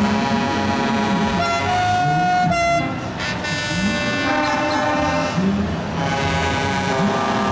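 Several truck horns honking at once, long steady tones at different pitches overlapping and starting and stopping at staggered times.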